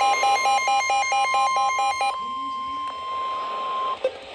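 Emergency alert attention signal: a steady high alert tone, with a rapid beeping pattern of about six beeps a second over it for the first two seconds. The tone then holds alone and cuts off suddenly about four seconds in, just before the warning message is read.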